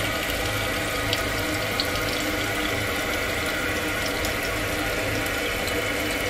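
Toilet tank filling through its fill valve: a steady hiss of water running in, with a faint whistling tone. This is the first fill after the supply valve was opened on a newly installed toilet.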